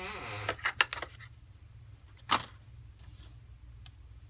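A few sharp clicks and taps, the loudest about two seconds in, over a low steady hum.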